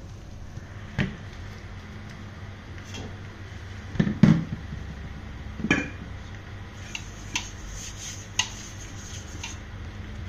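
Kitchen clatter of a stainless steel mixing bowl and utensils knocking on a work table. There are a few knocks, the loudest about four seconds in, then a run of lighter metallic clinks over a steady low hum.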